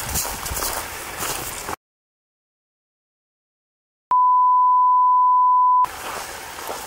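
Light outdoor background with small crackles cuts to dead silence about two seconds in. A steady, pure electronic beep like a test tone follows for under two seconds, then the outdoor background returns.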